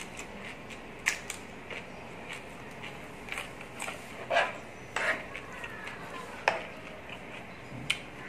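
Eating sounds: crunching bites and chewing of raw vegetables, and a metal spoon and fork clinking and scraping on a ceramic plate, with several sharp clicks spread through.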